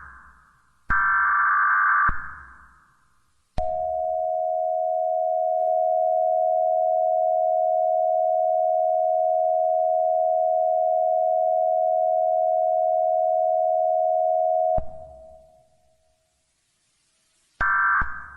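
Emergency Alert System tones: a burst of warbling digital header data, then the steady two-tone attention signal held for about eleven seconds before it cuts off. Another data burst begins near the end.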